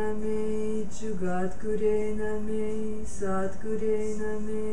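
A devotional mantra song: a sung voice holds long, steady notes, each lasting a second or two, with a brief dip in pitch between them, over soft accompaniment.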